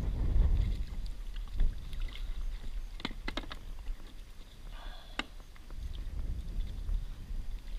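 Low rumble of wind and water at the kayak. A quick cluster of sharp plastic clicks comes about three seconds in and a single knock about five seconds in, as a dip net and gear are handled at the bait well.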